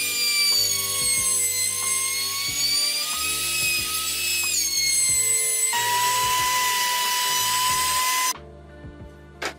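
Compact trim router running at high speed with a high-pitched whine, its pitch dipping and wavering as it is pushed through the wood. Later the whine holds steadier and a little lower, then stops abruptly near the end.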